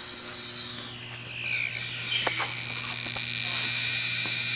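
Steady low electrical hum under a high electronic whine that dips and then rises in pitch, getting louder toward the end, with a couple of clicks about two seconds in: the sound of an electronic ghost-hunting device.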